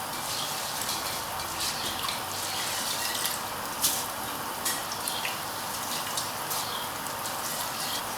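Pot of chicken stock bubbling on the heat, with a steady hiss and irregular small pops and plops of liquid, drained basmati rice just added to it.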